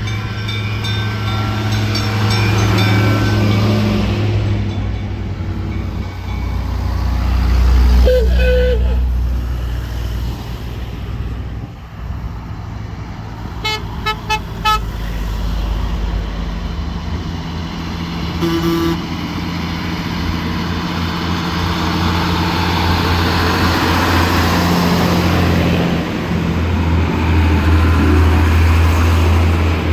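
Old vehicles driving past one after another, engines running steadily, with a quick series of short horn toots about halfway through.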